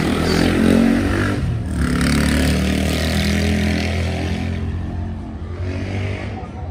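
Amplified live party music from an outdoor sound system about 2 km away, carried across the city as a muddled mix of bass and shifting tones over a broad haze, fading somewhat near the end.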